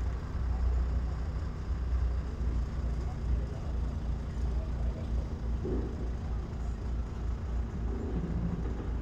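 Distant diesel locomotive running as it approaches, heard as a low, steady rumble with a faint hum.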